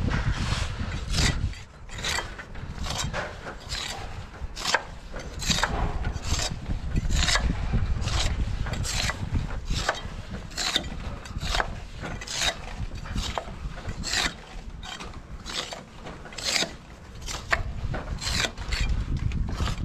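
Steel jointing tool scraping along fresh mortar joints between bricks, cutting out the joints in repeated short strokes, about one or two a second.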